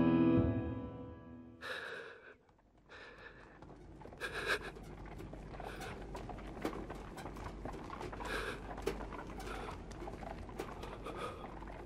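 Piano music fades out in the first second or two; after a short hush, horses breathe and snort several times over a low steady rumble, with small crackles from burning torches.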